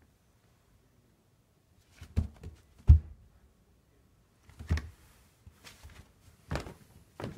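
A few dull, irregular thumps and knocks on a wooden floor, starting about two seconds in, the loudest about a second later.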